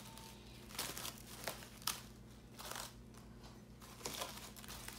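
Plastic cling wrap crinkling in irregular bursts as it is pulled and stretched over a bowl and pressed down around the rim.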